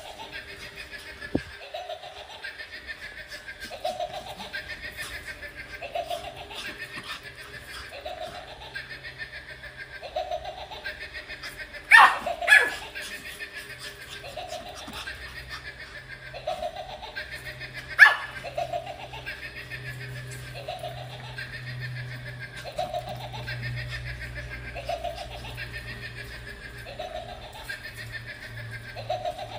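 Battery-powered light-up Halloween pumpkin toy rolling on a hard floor, playing a looping electronic laugh that repeats about every second and a half. Three loud sharp sounds stand out: two close together about halfway through and one more a few seconds later.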